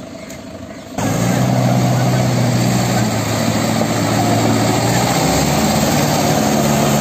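Mahindra 585 DI tractor's diesel engine running steadily under load as it pulls a trolley heaped with soil. The sound becomes suddenly louder about a second in, then holds an even drone.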